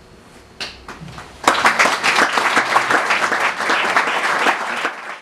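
Audience applauding: a few scattered claps at first, then full applause from about a second and a half in, which cuts off suddenly at the end.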